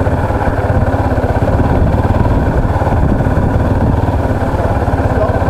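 Motorcycle engine running steadily with an even, fast throb, heard from on the bike as it rides along a gravel track.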